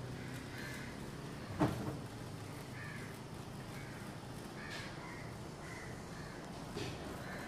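Crows cawing repeatedly, with one loud sharp crack about a second and a half in and a smaller one near the end, from an electrical arc sparking at a pole-top insulator on an overhead power line.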